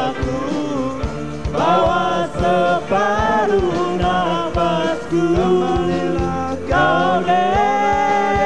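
Live band playing a pop-rock song: held, wavering sung notes over a steady drum beat.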